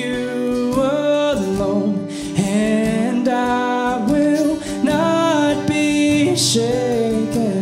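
A man and a woman singing a worship song together with long held notes, accompanied by an acoustic guitar.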